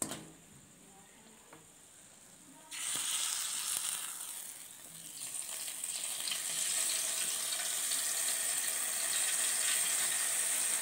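A steady sizzling hiss, like hot oil frying, that starts suddenly a few seconds in after near quiet. There is a single click at the very start.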